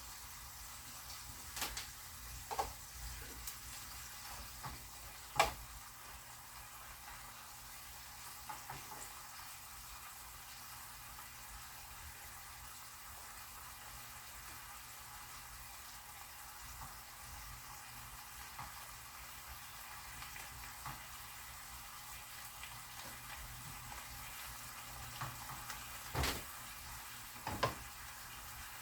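Chicken pieces sizzling faintly in oil in a frying pan as they brown, with a few sharp clicks of a utensil against the pan, the loudest near the end.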